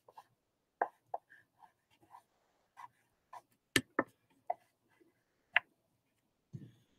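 Crayon on drawing paper: short, irregular taps and scratchy strokes, about a dozen separate clicks with gaps between, the sharpest a little under four seconds in.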